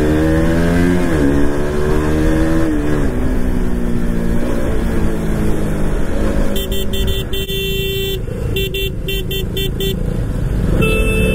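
Motorcycle engine running with its pitch rising and falling over wind rumble, then a vehicle horn honking: one long blast about six seconds in, followed by several short toots.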